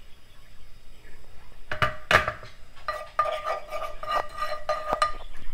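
A metal utensil knocking and scraping in a nonstick frying pan, stirring turmeric into oil. Two sharp knocks come about two seconds in, then quick scraping strokes over a ringing tone.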